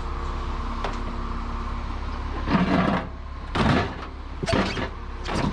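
Aluminium bicycles being handled and pulled from a pile, giving four rattling clatters and knocks spread over the last three seconds, over a steady low hum.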